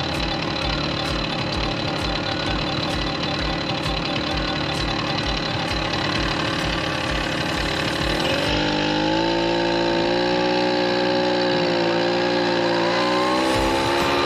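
A Tomos Automatik A3 moped's 49 cc two-stroke single-cylinder engine running with a regular pulse about three times a second. About eight seconds in it revs up to a higher, steadier note that wavers slightly.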